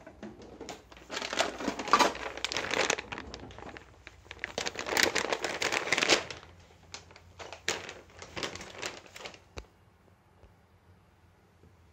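Plastic packaging crinkling and rustling in two long bursts, followed by a few scattered crackles and clicks.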